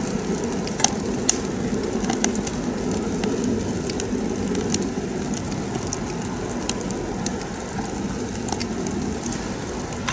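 Homemade rocket stove burning wood: a steady low rushing of the fire's draft, with scattered sharp crackles and pops.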